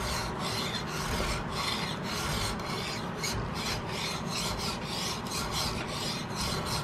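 A flat hand file drawn sideways along a flat of a steel octagonal muzzleloader barrel, rasping in quick, even, repeated strokes. This is draw-filing to cut back the smooth factory finish to an even file grain before bluing.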